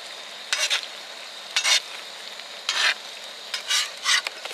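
A metal spatula stirring and scraping tteokbokki (rice cakes and fish cakes in sauce) around a wide black pan, in five strokes about a second apart, over a steady sizzle of the sauce cooking.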